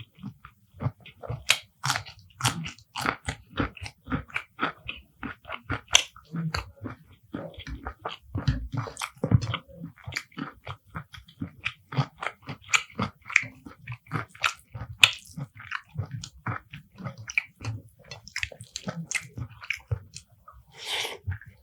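Close-miked eating sounds: a person chewing mouthfuls of spicy beef curry with rice, with rapid wet smacks and clicks of the mouth and some crisp crunchy bites.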